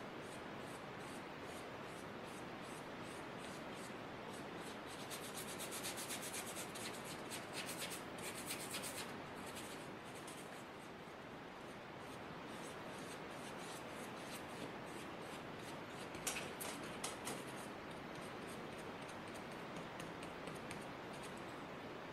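Flat synthetic paintbrush stroking wet watercolor across textured watercolor paper: a run of short, soft scratchy strokes over a steady faint hiss. The strokes come thickest a quarter to halfway through, then again about three-quarters in.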